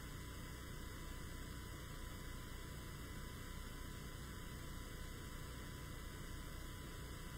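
Steady electrical mains hum with faint hiss from the microphone and sound system, with a few thin high tones held steady above it.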